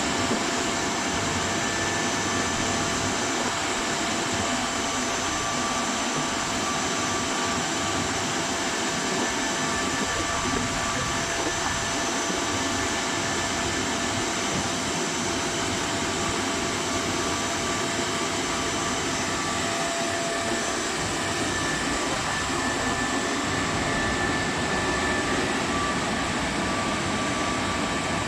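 Tunnel car washing machine running: a steady rushing noise with a few faint, steady whining tones above it.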